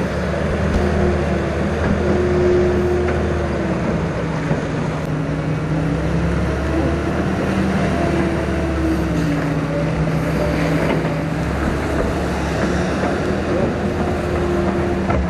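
Liebherr 902 wheeled excavator's diesel engine running under hydraulic load as it digs, its note shifting slightly in pitch as the load changes, over the steady rush of water in the ditch.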